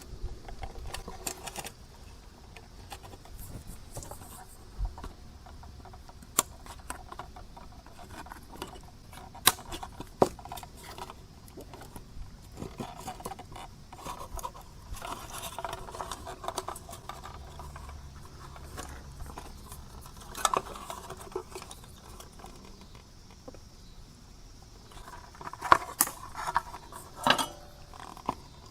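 Small metal tools clicking and tapping against a radio's circuit board while a coil lead is worked into place and soldered. The clicks are scattered, with a cluster of sharper ones near the end.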